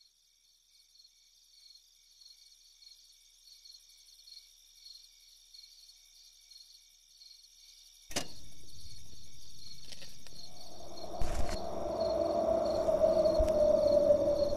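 Crickets chirping. About eight seconds in, a steady hiss comes up. From around ten seconds a low droning tone swells, with two dull thumps.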